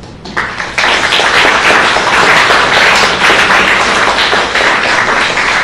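Audience applauding: clapping starts about half a second in and quickly builds to a loud, dense, steady applause.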